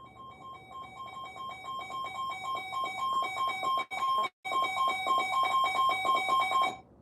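Electronic alert chime: two tones repeating in rapid pulses, growing steadily louder, with a brief dropout about four seconds in, then cutting off suddenly near the end.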